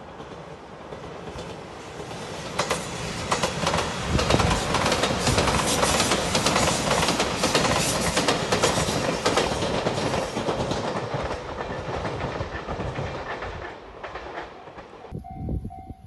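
Five-car Anpanman-liveried Shiokaze limited express passing close by, its wheels clattering over the rail joints; the noise swells to a peak in the middle and dies away. Near the end a level-crossing warning bell rings with a steady repeating tone.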